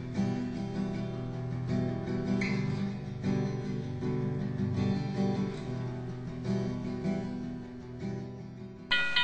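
Strummed acoustic guitar music from the film's soundtrack. Just before the end it cuts off suddenly and a different sound starts, with quick, evenly repeating high-pitched pulses.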